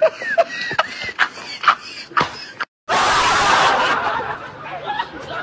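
A person snickering and laughing in short spurts, then after a cut a loud rushing noise that fades away over about two seconds.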